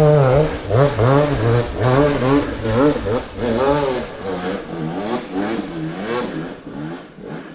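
Dirt bike engine revved hard on a steep hill climb. Its pitch rises and drops in quick surges about every half second as the throttle is worked, then fades near the end.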